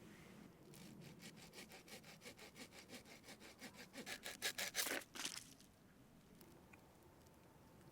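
The small wood saw of a Victorinox Camper Swiss Army knife sawing through a conifer treetop stem in quick back-and-forth strokes. The strokes grow louder toward the end and stop about five seconds in.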